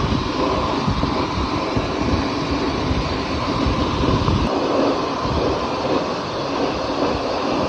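Steady rushing, hissing noise with an uneven low rumble and a faint steady tone, from air conditioner cleaning work.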